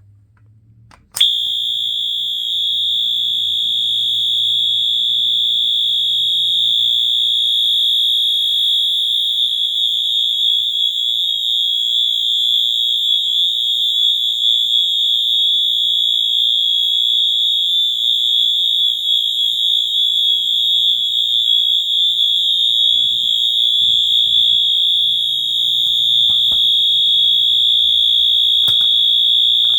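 Wheelock MT fire alarm horn sounding one continuous, unbroken high-pitched tone. It starts abruptly with a click about a second in.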